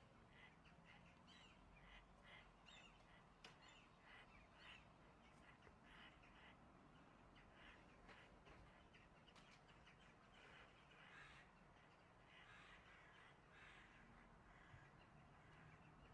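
Faint, harsh calls of a crow, repeated several times a second, from the bird pinned under a hawk: distress calls of the captured prey.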